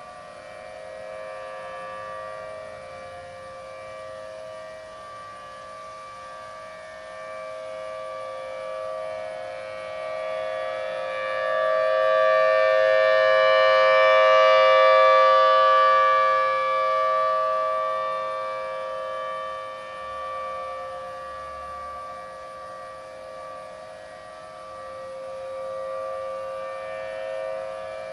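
Federal Signal Thunderbolt outdoor warning siren sounding a steady tone in a test. It swells to its loudest about halfway through and fades again as the rotating siren turns past. Other, more distant sirens sound along with it, giving several steady tones at once.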